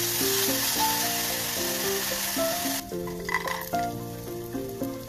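Grated carrots frying in hot oil in a metal pot, sizzling steadily as a silicone spatula stirs them. About three seconds in the sizzle drops abruptly to a quieter crackle of raisins sautéing in the same oil. A simple background melody plays throughout.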